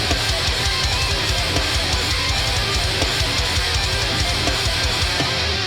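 Heavy metal music: distorted electric guitars over fast, driving drums. The drums drop out about five seconds in, leaving a held low note.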